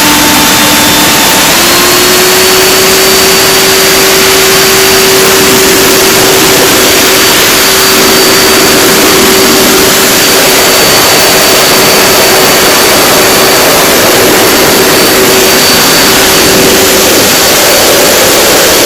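Leaf blower running flat out at close range: a loud, steady rush of air with a steady whine, its pitch stepping up slightly about a second and a half in as it reaches full speed.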